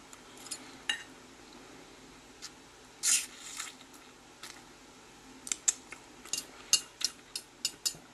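Eating noodles close to the microphone: a short slurp about three seconds in, then a run of sharp wet clicks and smacks of chewing.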